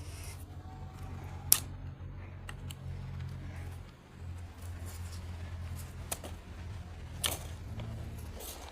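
A few sharp clicks and snaps as small twigs are trimmed off a stick, the loudest about a second and a half in, over a low steady rumble.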